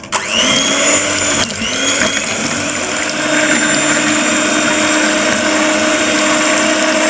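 Electric hand mixer beating chilled whipping cream: the motor whines up to speed, drops out briefly about a second and a half in, spins up again and then runs steadily.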